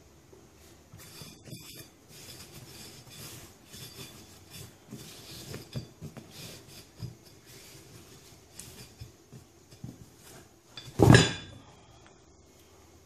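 Small clicks, clinks and scrapes from soaping and handling a ride-on mower's tyre and rim. About eleven seconds in comes one loud, sharp bang: the tyre bead snapping onto the rim as it seats.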